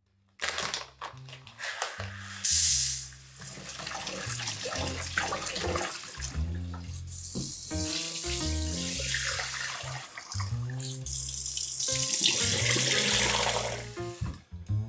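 Kitchen tap running into a stainless steel mesh colander while barley is rinsed and swirled by hand, the water splashing through the grains and mesh into the sink. The water is loudest in a short spell a few seconds in and again for about three seconds near the end, over background music.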